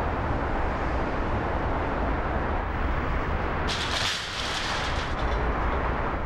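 Steady low rumble of distant city traffic, with a brief hiss about four seconds in.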